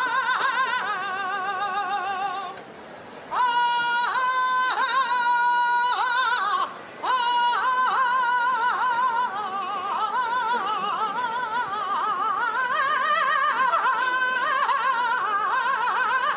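A solo voice singing a saeta, the flamenco-style sung prayer to the Virgin during a Holy Week procession. It holds long, wavering, ornamented notes and breaks off briefly twice to take a breath.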